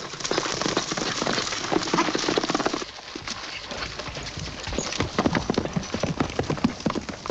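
Horses galloping: a fast, dense clatter of hoofbeats, louder for the first three seconds and a little softer after.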